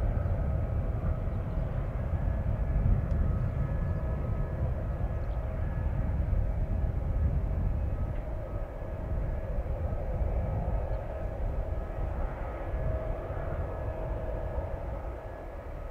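Airport apron noise from a parked Boeing 767 and its ground equipment: a steady whine of several held tones over a constant low rumble.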